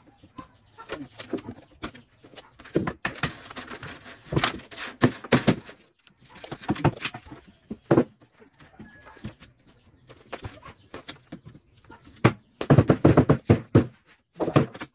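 Irregular knocks and clattering as pieces of a window-screen frame are handled and fitted together, with a dense run of quick knocks near the end.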